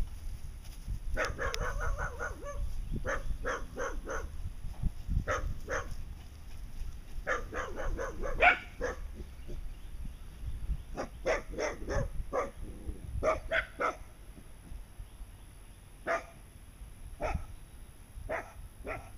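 A dog barking repeatedly, in quick runs of three or four barks.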